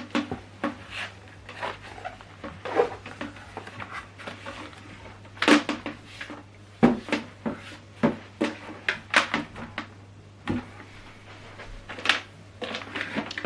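Irregular clicks, taps and knocks of hands handling a soundbar and its power cable: the plug being pushed into the socket on the back and the plastic unit shifted about.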